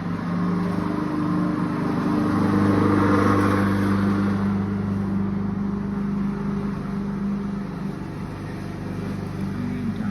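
Lawn mower engine running steadily, growing louder for a few seconds and then easing off a little.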